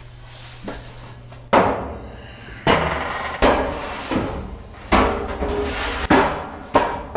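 Large hollow metal powder cans knocking against each other and against steel rack frames as they are pushed into place: a series of sharp, ringing metal knocks about a second apart.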